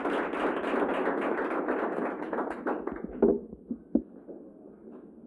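Audience applauding, then dying away about three seconds in; two sharp knocks follow, a moment apart.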